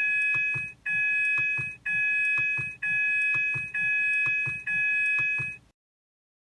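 Ford seatbelt-reminder chime, the warning for an unfastened seatbelt: six identical electronic chimes of a few steady tones, about one a second, which then stop abruptly.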